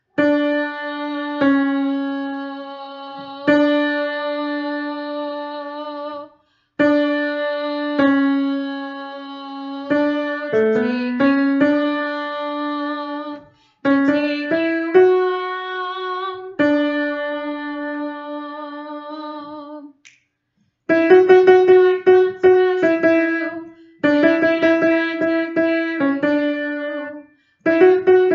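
Piano playing the alto line as a single-note melody, each note struck and left to fade, in short phrases with brief pauses between them. From about two-thirds of the way in, the notes are struck quickly and repeatedly.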